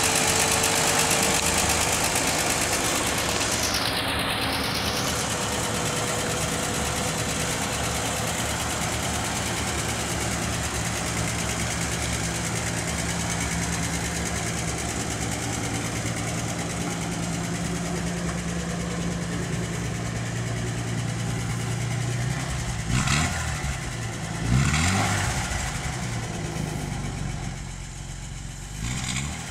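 A 1954 Plymouth Belvedere's flathead straight-six engine idling steadily, with the throttle briefly blipped twice near the end.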